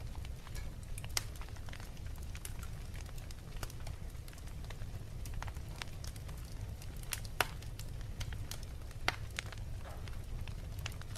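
Wood fire crackling in a fireplace: scattered sharp pops and snaps over a steady low rumble, with a few louder pops standing out.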